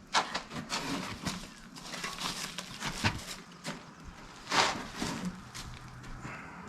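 Irregular knocks, clicks and scraping from working on a rotten subfloor, pieces of soft, decayed wood and debris being pulled and moved about. The loudest is a rasping scrape midway through.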